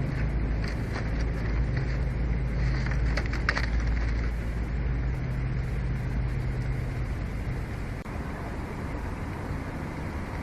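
A low, steady engine hum that fades about eight seconds in, with a few faint clicks over it early on.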